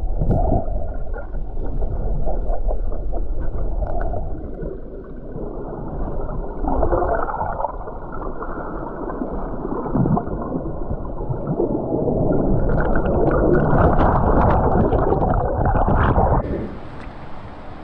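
River current rushing and gurgling, heard with the microphone underwater: muffled and swelling, with a few knocks. About a second before the end it cuts abruptly to a thinner open-air hiss of rushing river water.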